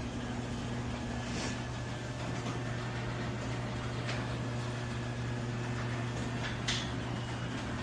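LiftMaster garage door openers running, a steady low motor hum as the doors travel, with a few short clicks and rattles from the door sections.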